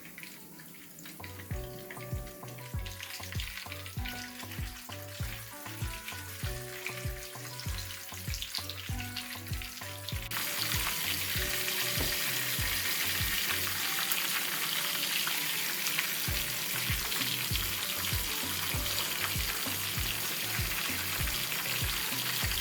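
Chicken chapli kabab patties shallow-frying in hot oil, sizzling and crackling; the sizzle jumps suddenly louder about halfway through and stays loud. Background music with a steady beat runs underneath.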